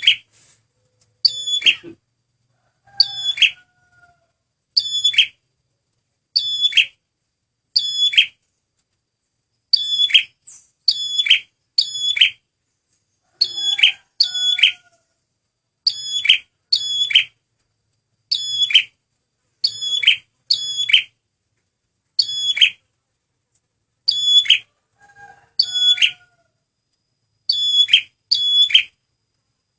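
Male prenjak merah calling: short, sharp, high chirps repeated about every second or so, often in quick pairs, each note dropping sharply in pitch.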